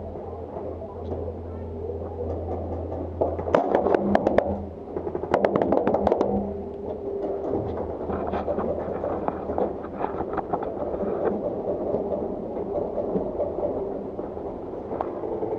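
Paintball markers firing, with scattered single shots and two rapid volleys about four and six seconds in. A steady low hum sits under the first few seconds.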